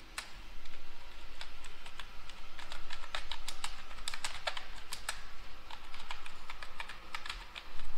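Typing on a computer keyboard: a run of irregular keystroke clicks, several a second.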